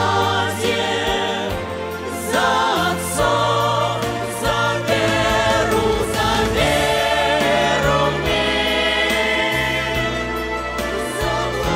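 A vocal ensemble singing a prayer song with instrumental accompaniment, the voices held with vibrato over steady low backing notes.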